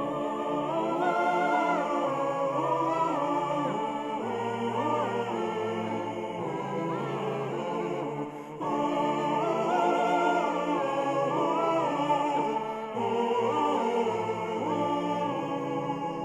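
Music: layered, choir-like melodic lines without clear words over low held bass notes that shift pitch every couple of seconds, with a brief drop about eight seconds in.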